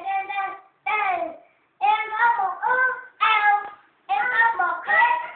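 A young child singing without accompaniment, in short sung phrases broken by brief pauses.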